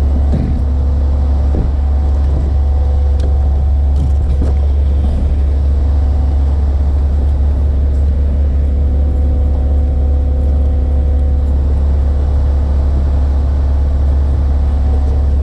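Tow truck engine idling steadily: a constant low hum that neither rises nor falls.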